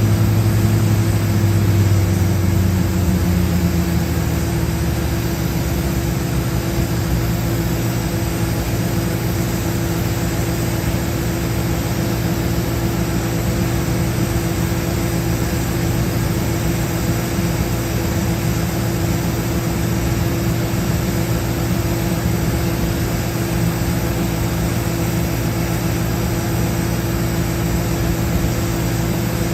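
Combine harvester's engine running steadily under load while harvesting corn, a continuous low drone. In the first few seconds the lowest tones drop slightly in pitch and level, then hold steady.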